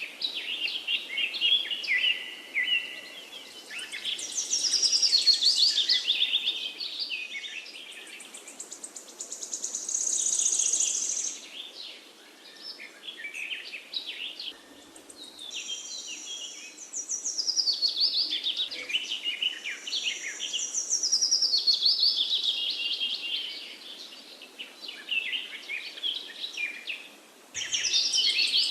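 Several songbirds singing and chirping, with rapid trills and overlapping phrases that come in waves of a few seconds, separated by brief lulls.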